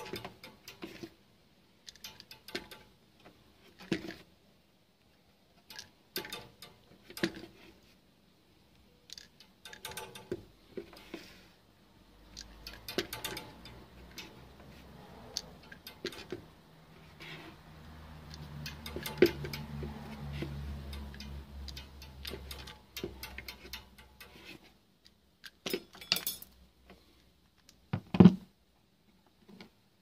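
Small tube cutter worked around a copper refrigerant pipe on a freezer compressor: light metallic clicks and scrapes with handling knocks, and one sharper knock near the end. A low hum sits underneath through the middle stretch.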